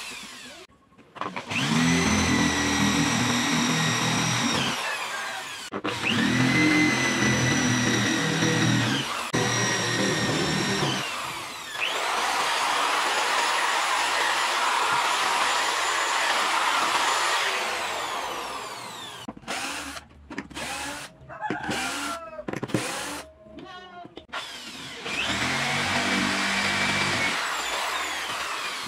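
Electric drill boring holes in wood, in a series of runs that each spin up to a steady whine and wind down. Past the middle comes a longer, noisier run, followed by short choppy stop-start bursts.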